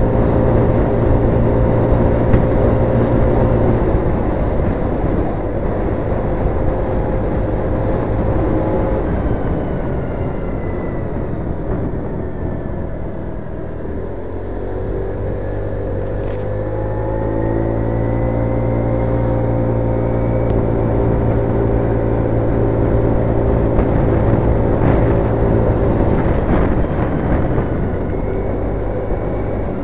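Scooter engine running while riding, with road noise; it eases off and slows about halfway through, then its pitch rises again as it picks up speed.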